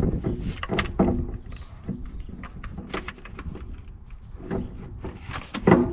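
Irregular knocks and clatter, a dozen or so sharp hits spread over a few seconds with a denser cluster near the end.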